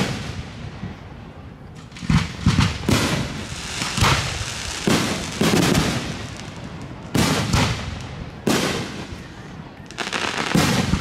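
Aerial fireworks shells bursting overhead: about a dozen loud bangs, several in quick pairs, each trailing off in an echoing rumble.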